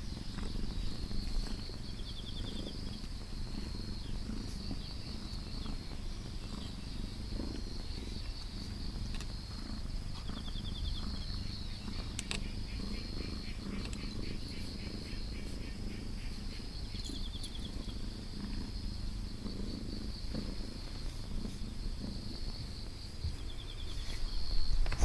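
Kitten purring steadily, a low pulsing rumble.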